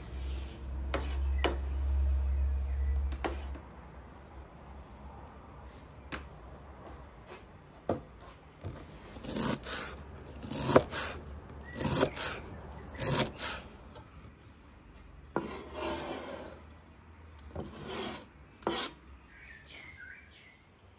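A series of rasping, scraping strokes, roughly a second apart through the middle, with scattered sharp knocks between them. A low rumble fills the first few seconds.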